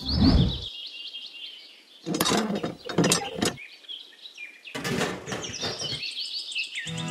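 Small birds chirping, broken by three short bursts of scraping and clicking from small plastic pipe parts being handled and fitted together.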